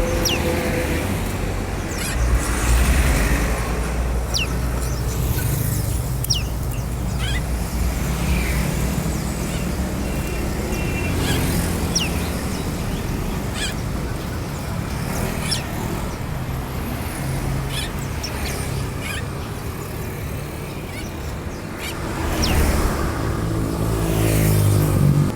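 Caged songbirds chirping, short sharp high calls that sweep downward, one every second or two, over a steady low rumble of road traffic. A vehicle passes louder near the end.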